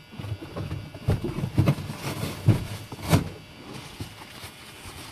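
Small metal lock cylinder parts being handled: a few scattered clicks and light knocks, the sharpest about three seconds in, then quieter rubbing.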